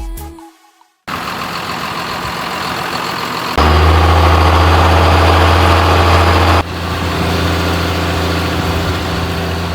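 Background music fades out, then a John Deere tractor's diesel engine runs steadily. It is much louder for about three seconds in the middle, stepping up and back down abruptly.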